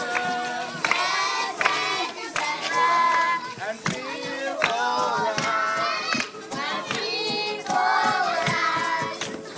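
Children and a man singing together in chorus to a strummed acoustic guitar, with sharp rhythmic hits running through the song.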